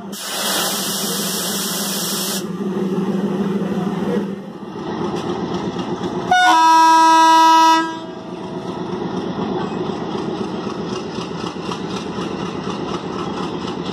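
Indian Railways diesel locomotive sounding its horn once for about a second and a half, over the steady running of its diesel engine. A loud hiss fills the first two seconds or so.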